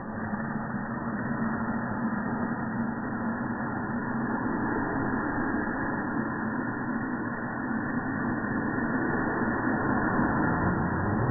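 Firework fountain mounted as an exhaust stack in an RC truck's bed, burning and spraying sparks with a steady rushing hiss that grows slightly louder.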